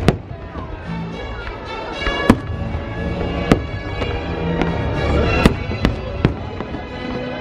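Aerial fireworks bursting over the show's music soundtrack. There are about six sharp bangs, three of them close together a little past halfway.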